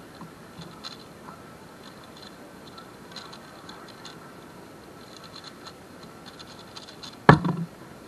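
Valk 3 speedcube being turned fast during a solve: quick light clicks of the layers snapping past each other. About seven seconds in, a loud slap as the solved cube is put down and both hands hit the competition timer to stop it.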